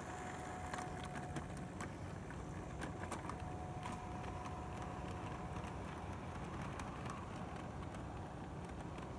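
Hornby OO-gauge Flying Scotsman model train running on sectional track: a steady electric motor hum and faint whine, with scattered light clicks from the wheels and coaches on the rails.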